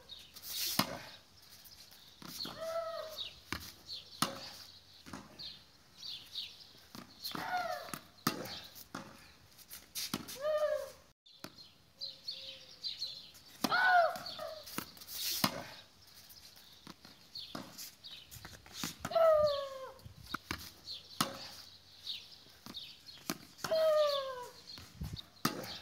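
Tennis ball struck by a racket and bouncing on stone paving, a series of sharp knocks. Every few seconds there is also a short cry that falls in pitch.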